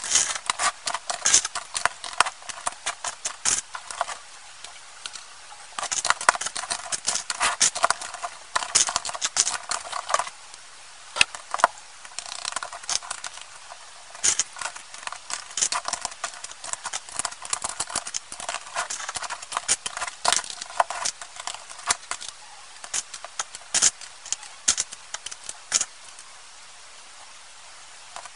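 Plastic Lego bricks clicking and clattering as they are handled and snapped together, sped up to three times speed, so the clicks come in fast, dense runs with short lulls now and then.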